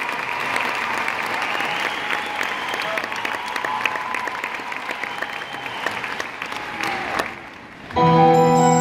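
Large arena crowd applauding and cheering, dying down about seven seconds in. About a second later a piano starts playing sustained notes, louder than the applause.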